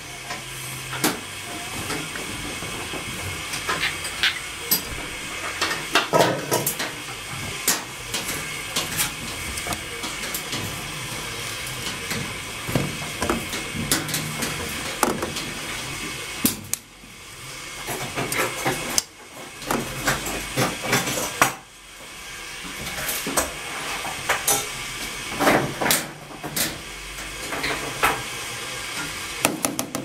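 Bedding being stuffed by hand into a top-loading washing machine drum: fabric rustling and handling, with scattered sharp clicks and knocks against the machine, over a steady hiss.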